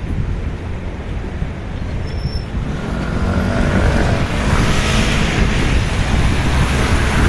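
Road traffic on a wet street: a vehicle passes with tyre hiss swelling about three to five seconds in, over a steady low rumble of wind on the microphone.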